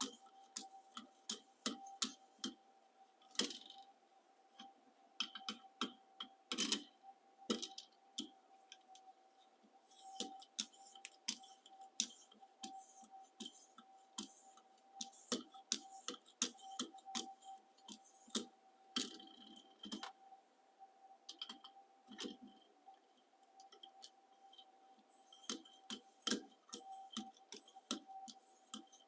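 Knife blade being stropped on a ViperSharp guided sharpening system: a string of light, irregular clicks and short swipes as the strop is drawn along the edge stroke after stroke.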